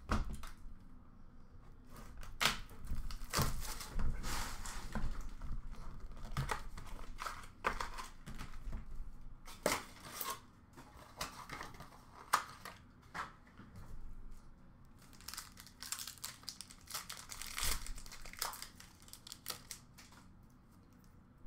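Trading-card pack wrapper being torn open and crinkled, in irregular rustling bursts with sharp crackles.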